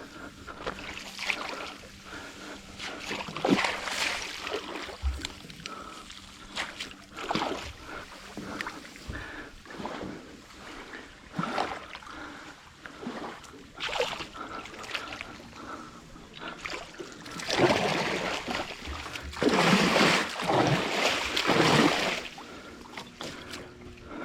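Water splashing and sloshing against a small boat in irregular rushes, heaviest from about 17 to 22 seconds in.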